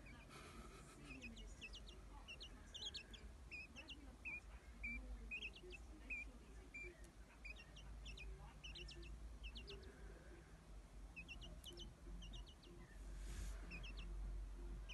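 Young hand-reared quail peeping softly: short high chirps, often in quick runs of two or three, repeated throughout.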